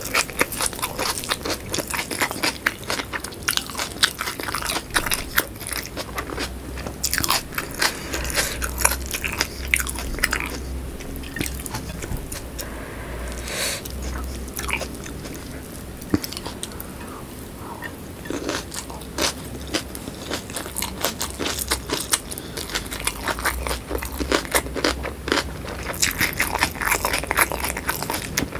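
Close-miked crunchy chewing and biting of whole shallots in sambal, with many irregular crisp crunches. It eases off to softer chewing for a few seconds midway, then grows crunchy again near the end.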